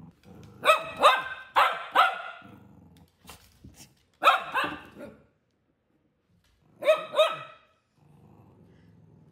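Cavalier King Charles spaniel barking at a plastic bottle on the floor, a strange object that sets him off: sharp barks in quick groups, four, then three, then two.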